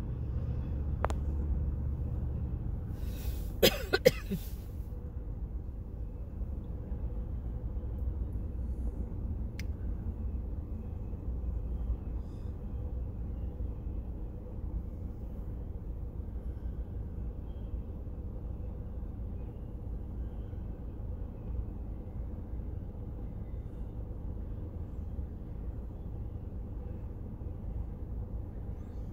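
Freight train of double-stack intermodal container cars rolling past, a steady low rumble of wheels on rail. A short, loud burst of sharp sounds breaks in about three to four seconds in.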